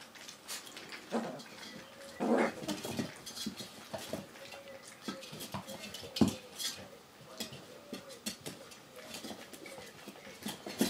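Vizsla puppies feeding from a shared steel pan: many small clicks, knocks and scrapes of muzzles and paws against the metal, with a couple of louder knocks. Faint short whimpers recur throughout.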